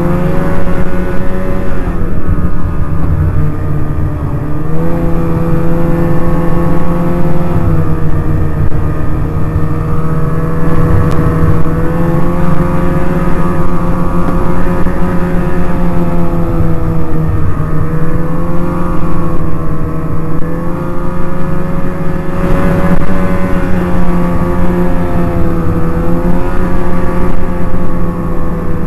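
Snowmobile engine running steadily while riding a groomed trail, its note rising and dipping slightly with the throttle over a constant low rumble.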